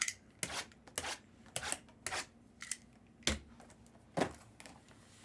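Trading-card box packaging being opened by hand: a string of short, sharp snaps and crinkles, about two a second, irregular in spacing.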